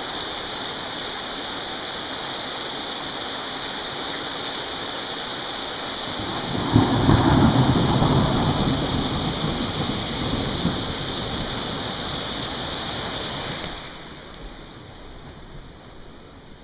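Heavy rain pelting a car steadily, with a low rumble of thunder swelling about six and a half seconds in and fading over the next few seconds. About fourteen seconds in, the rain noise drops off sharply.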